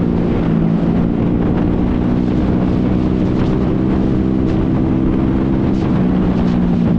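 A 125 cc single-cylinder commuter motorcycle engine running steadily while the bike picks up speed at about 80 to 90 km/h, heard from the rider's seat, with wind rushing over the microphone.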